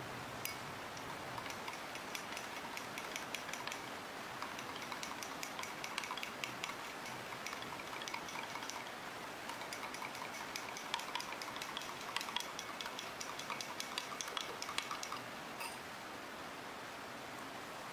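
Many small, irregular clicks and taps over a steady hiss.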